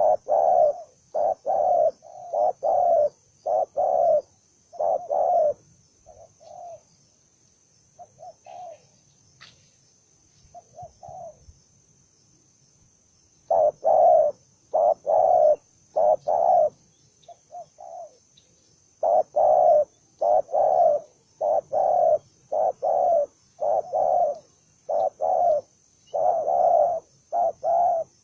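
Spotted dove cooing in quick repeated phrases, from a wild-caught bird the keeper calls aggressive and combative. The coos thin out to a few faint ones for several seconds in the middle, then come back loud and steady.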